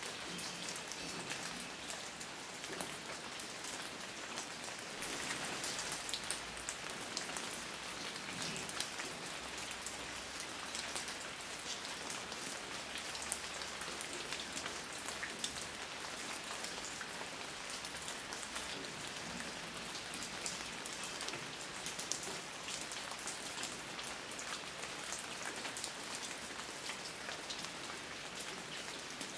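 Steady rain falling, an even hiss with many individual drops ticking on a surface.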